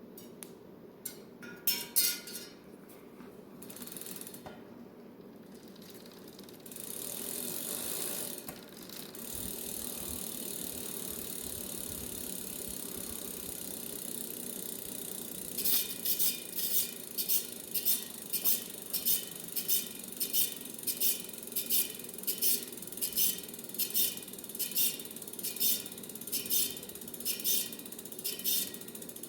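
Hand-spun bicycle wheel, turning with a steady mechanical whir, then about halfway through a sharp tick starts about twice a second, once each turn, as the remaining bend in the rim brushes the zip-tie guide.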